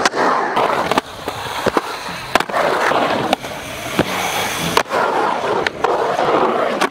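Skateboard wheels rolling on a concrete skatepark bowl, with sharp clacks of the board hitting the concrete several times as the skaters pop and land tricks.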